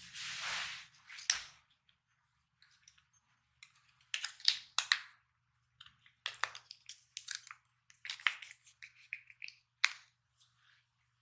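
Tonkinese cat crunching dry treats: a brief rustle at the start, then irregular sharp crunches and clicks.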